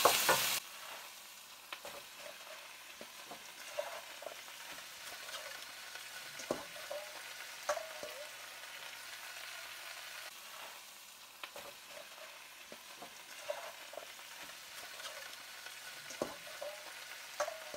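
Napa cabbage and enoki mushrooms sizzling steadily in a hot nonstick frying pan as they are stir-fried with a wooden spatula, with scattered taps and scrapes of the spatula against the pan.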